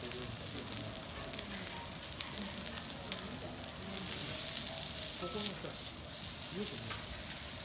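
Block of wagyu beef sizzling on a hot teppanyaki iron griddle, with light clicks of steel spatulas against the plate as the chef turns and presses it. The sizzle grows louder about five seconds in, as the spatulas press the meat down.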